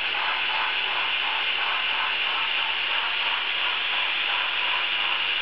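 HO-scale model diesel locomotives running along the track: a steady hiss with a faint, evenly repeating clicking underneath.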